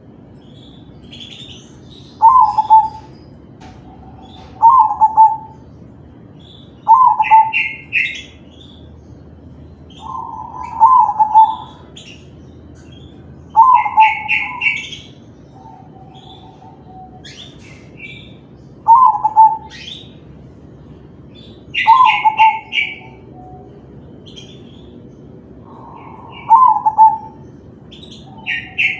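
Crossbred zebra dove (perkutut) singing its cooing song, one short phrase every few seconds, about eight times, with higher quick chirping notes between the phrases.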